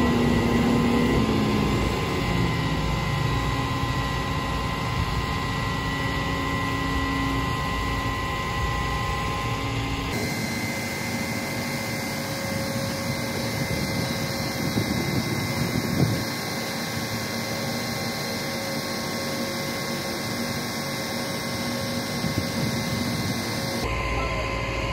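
Rollback car hauler running with a steady mechanical whine while its hydraulic bed is tilted to unload a pickup. The sound changes abruptly about ten seconds in and again near the end.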